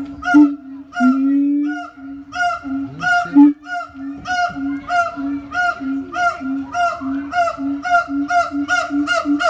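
A monkey giving a long series of short calls on one steady pitch, about two a second, coming faster toward the end.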